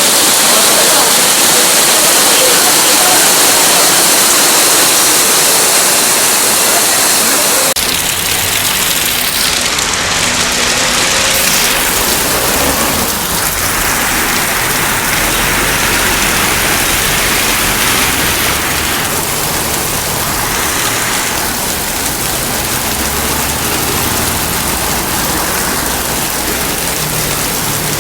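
Loud, steady rush of water, an even hiss with no clear beat. About eight seconds in the sound changes, the high hiss easing and a lower rumble joining it.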